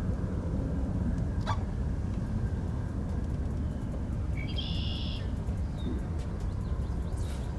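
A bird gives one short call about halfway through, over a steady low rumble.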